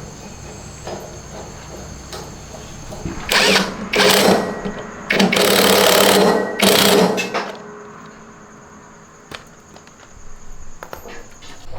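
Power tool run in four short bursts, the longest about a second and a half, while working on a front-loading washing machine. Quieter knocks and handling noise before and after.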